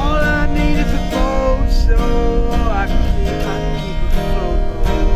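Acoustic guitar strummed in a steady rhythm, with a man's wordless singing over it for the first three seconds or so.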